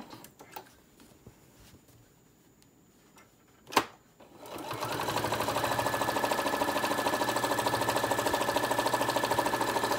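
Near quiet at first, broken by a sharp click a little under four seconds in. Then a Singer Modern Quilter electric sewing machine starts up and runs steadily, stitching around the edge of a thick stack of fabric and batting layers.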